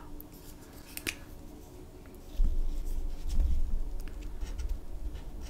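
A dual-tip brush marker is uncapped with a sharp click about a second in, then stroked across paper in a swatch. From about halfway, low rumbling handling sounds come through the desk, the loudest part.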